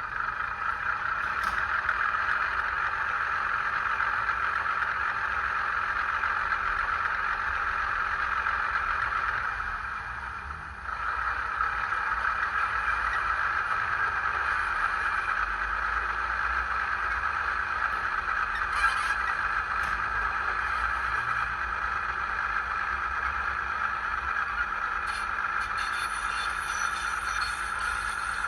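OO gauge model Ruston 165 diesel shunter's sound decoder playing its engine sound through a small speaker, running steadily. The engine note dips briefly about ten seconds in, then picks up again, with a few light clicks later on.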